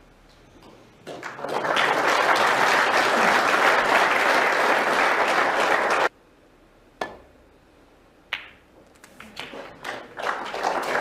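Snooker crowd applauding, cut off abruptly about six seconds in. A couple of sharp clicks of snooker balls being struck follow, then the applause builds again near the end.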